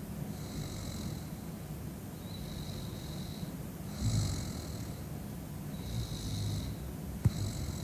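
A heavily drunk woman snoring in her sleep: a breath with a low rumble and a hiss about every one and a half to two seconds. A single sharp click about seven seconds in is the loudest moment.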